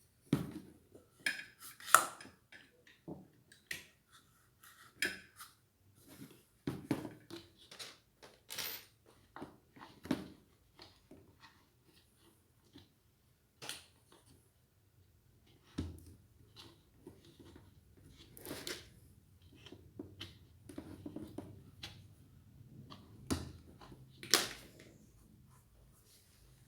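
Irregular clinks, taps and knocks of ceiling-fan parts and tools being handled, a few of them with a short metallic ring. The sharpest knocks come about two seconds in and near the end, with a quieter spell in the middle.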